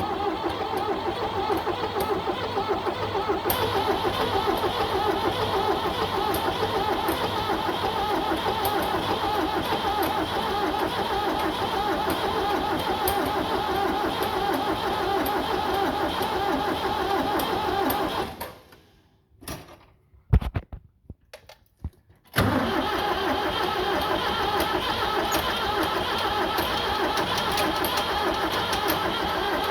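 Ford 7610 diesel tractor engine being turned over by its starter without firing. Steady cranking for about eighteen seconds, a pause of a few seconds with a couple of sharp clicks, then cranking again. The engine won't start, which the owner thinks could be a fuel problem or no compression.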